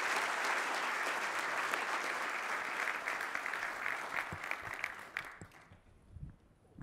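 Audience applauding in a large hall, the clapping dying away about five seconds in, then a few faint thuds.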